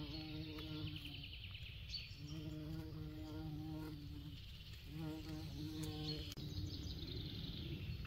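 A flying insect buzzing close by in three passes of a second or two each, its pitch holding nearly steady.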